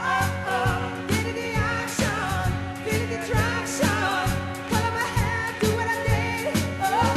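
Live dance band playing a pop-soul number, with a wavering lead melody over bass and a steady drum beat.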